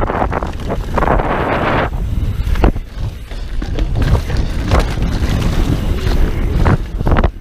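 Wind buffeting a camera microphone on a downhill mountain bike in motion, with tyres scrubbing over loose dirt and the bike clattering over bumps in several sharp knocks.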